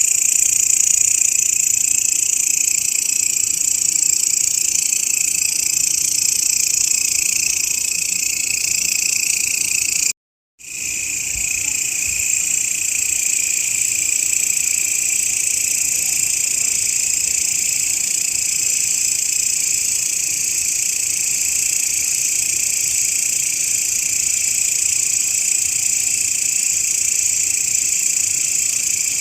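Grasshopper song: a continuous, loud, high-pitched insect buzzing that cuts out completely for about half a second a third of the way through, then resumes.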